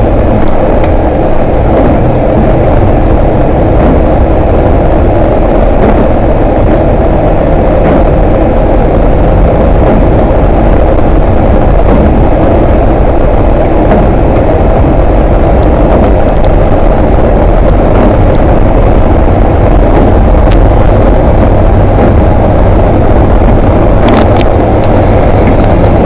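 Steady engine and road noise of a moving bus heard from inside the cabin, a loud continuous rumble with a few faint clicks near the end.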